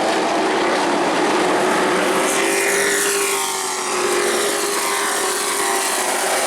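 Race truck engines running at speed on a short-track oval, with a falling pitch about two to three seconds in as one sweeps past.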